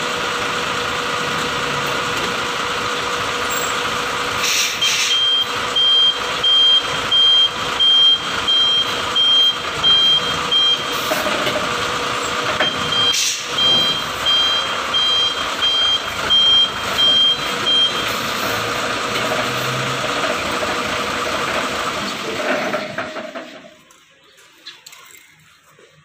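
Mitsubishi Fuso truck engine running steadily while its reverse-gear alarm sounds a run of single high beeps, about one and a half a second, with a short break partway. The clutch has just been re-adjusted and the rough noise is gone. The running sound drops away near the end.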